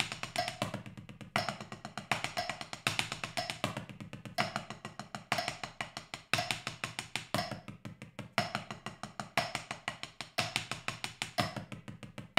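Drumsticks playing fast six-note sticking patterns on a four-zone practice pad, moving between zones of different pitch, with louder accented strokes standing out from the even run of notes. The playing stops suddenly at the very end.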